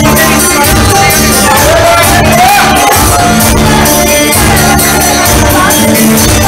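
Live band playing loud dance music, with a singing voice carrying a gliding melody over held bass notes and a steady beat.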